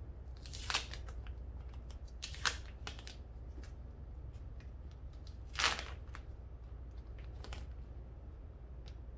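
Plastic packaging bags crinkling and rustling as cloth masks are handled and slipped into them: three short, sharp swishes about a second, two and a half seconds and five and a half seconds in, the last the loudest, with a few faint ticks between.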